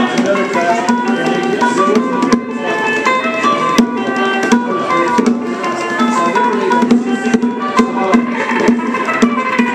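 Live improvised jam of hand-played bongos and an amplified electric guitar: a steady stream of drum strokes under the guitar's melodic lines.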